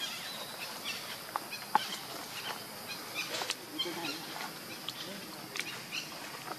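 Outdoor ambience: a steady high insect hum with scattered short bird chirps and small clicks and rustles from the dry leaf litter.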